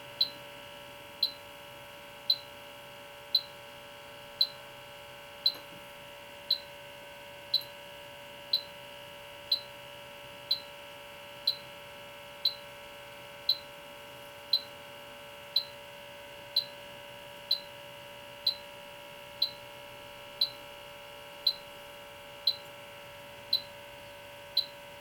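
H10 electronic refrigerant leak detector ticking out short, high beeps at a steady rate of about one a second, over a faint steady hum. The rate never speeds up, so the detector is sensing no leak as it scans the dehumidifier's coil.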